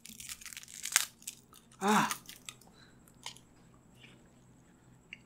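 Plastic straw wrapper being torn and crinkled, and a drinking straw pushed into a small paper juice carton of Maaza mango drink, with a few sharp clicks, one loud about a second in. A short voice sound about two seconds in; the rest is quieter, with scattered small ticks.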